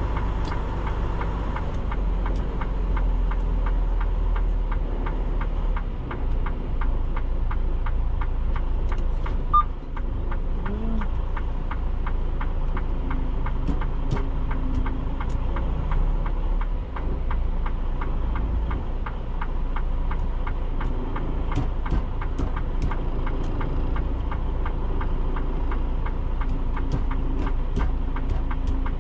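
Semi-truck's diesel engine running steadily with a low rumble, heard from the cab as the tractor-trailer is manoeuvred at low speed.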